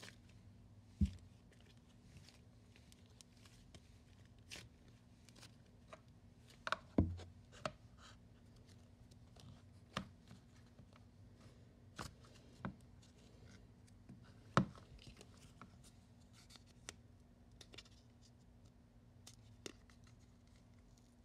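Green slime squeezed and worked by hand and pressed into a clear plastic tub: scattered small clicks and crackles, with three louder knocks spread through, over a steady low hum.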